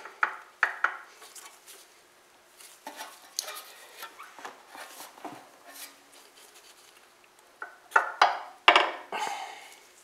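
Metal clinks and knocks of hand tools and engine gears being worked by hand inside an open Tecumseh small-engine crankcase, with scattered light taps and a cluster of louder knocks near the end.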